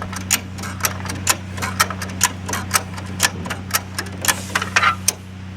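Ratchet buckle on a 2-inch ratchet strap clicking as it is cranked tight with a tightening handle, sharp clicks about two a second, over a steady low hum.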